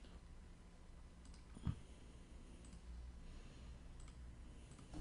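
A few faint clicks and one louder knock about a second and a half in, over a low steady hum.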